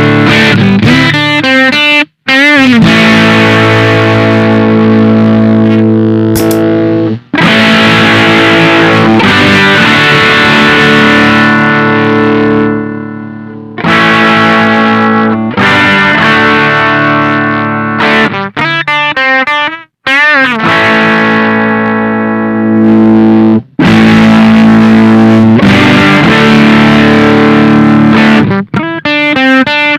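Electric guitar played through a Witchcraft Velouria FX distortion/preamp pedal: heavily distorted chords ring out and are cut off sharply several times, with quicker riff passages in between.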